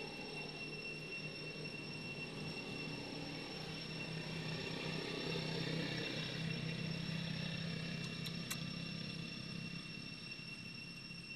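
A low engine hum grows louder through the middle and fades again, over two steady high-pitched tones, with a single sharp click near the end.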